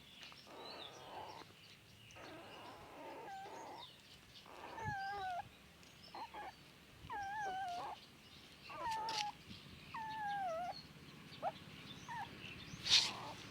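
Newborn puppies whining and crying: a series of short, high, wavering squeals, several in a row, each falling in pitch at its end. A sharp click sounds near the end.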